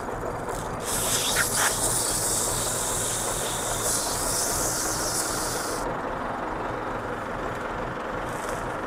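Tractor running steadily behind a round baler as a net-wrapped hay bale is ejected, with a loud hiss from about a second in that stops about six seconds in.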